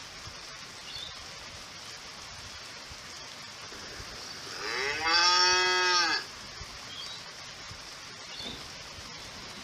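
A cow mooing once: a single drawn-out moo of about a second and a half, its pitch rising and then falling, over a steady faint background hiss.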